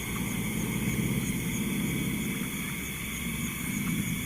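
Insects trilling steadily, one of them in quick even pulses, over a rough low rumble.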